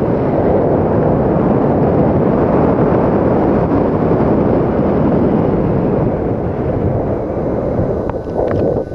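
Wind rushing over the camera's microphone during a parachute descent to landing, a loud, steady, low rumble. It dips briefly near the end, with a few light clicks.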